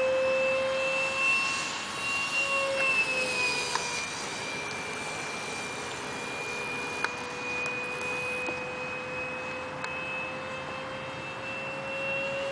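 Electric ducted fan of a radio-controlled Mirage 2000 model jet whining in flight, one steady high-pitched tone with overtones. The whine dips a little in pitch a few seconds in and climbs again near the end.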